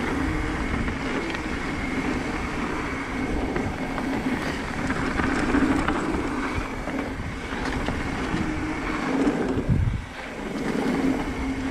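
Mountain bike rolling down a dirt singletrack trail: tyre noise and bike rattle mixed with wind on the camera microphone, with a low thump just before the last couple of seconds.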